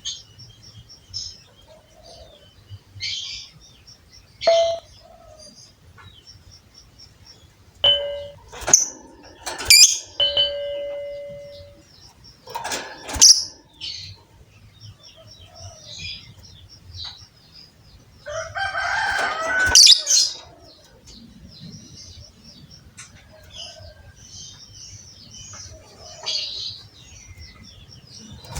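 Lovebirds chirping and chattering in scattered high calls, with a few clear whistled notes about a third of the way in and a dense, loud burst of chatter about two-thirds through.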